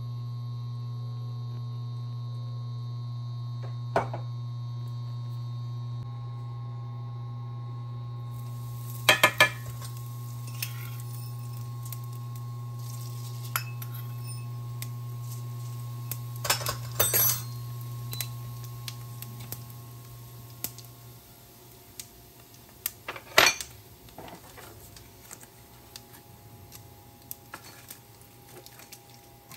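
Metal spoons and small steel bowls clinking against each other and the pan rim a few times as spices are tipped into oil, over a steady low hum that stops about two-thirds of the way through.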